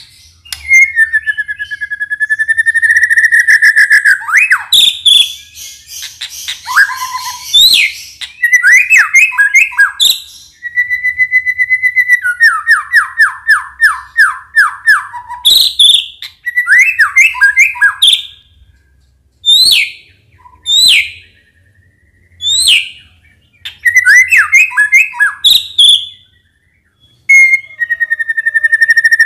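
White-rumped shama (murai batu) singing: loud whistled phrases mixed with rapid trills and chattering runs of notes, including a long run of fast repeated notes that steps down in pitch midway, and shorter sharp calls separated by brief pauses in the later part.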